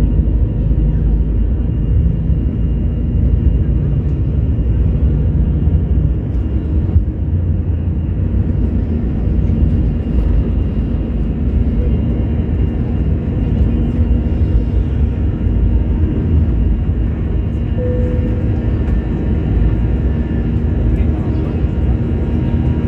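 Airbus A321 engines at high thrust heard from inside the passenger cabin: a loud, steady low rumble with faint steady whining tones above it.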